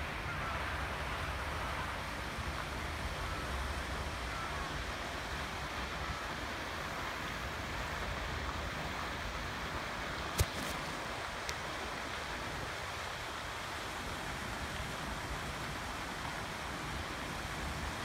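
Steady background hiss with no clear calls from the birds, broken by one sharp click about ten seconds in and a fainter click a second later.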